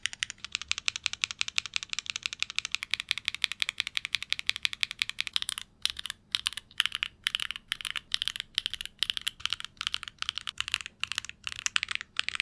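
QK75N mechanical keyboard with stock SWK Jieum V2 switches on a carbon fibre plate, keys clacking in a fast, dense run. From about five and a half seconds in, clusters of keys are mashed together in short bursts about twice a second: a crunch test. The keystrokes are bright and clacky.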